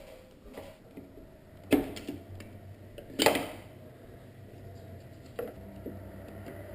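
A few sharp knocks and clunks of hard plastic, the loudest about three seconds in, as a car headlight assembly is pulled up and worked out of its mounting.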